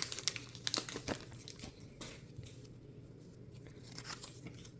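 Foil booster-pack wrapper crinkling as it is torn open: a dense run of sharp crackles over the first second and a half, then fainter, scattered rustles.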